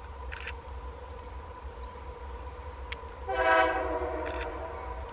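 Locomotive air horn of an approaching freight train sounding one blast of about a second, about three seconds in, several notes at once. A steady low rumble and a faint steady hum lie underneath.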